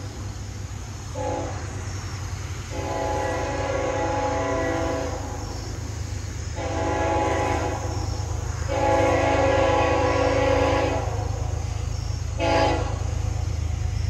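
Freight locomotive horn sounding a multi-note chord in repeated blasts: a brief toot about a second in, then long blasts and a short one near the end, the grade-crossing warning of a train approaching a road crossing. A steady low rumble runs underneath.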